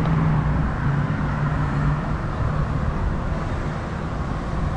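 Low, steady rumble of car engines and street traffic, a little louder in the first couple of seconds.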